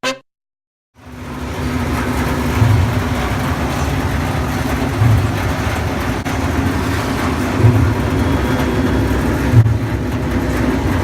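Transformer panel running with a steady hum and machine whirr, and a low thump that repeats about every two and a half seconds: the abnormal noise whose cause is being traced.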